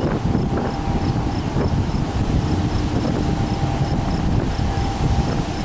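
New GE-built diesel-electric freight locomotive, unpainted gray and lettered VLI, passing at close range: a steady heavy low rumble with a faint hum, over wind on the microphone.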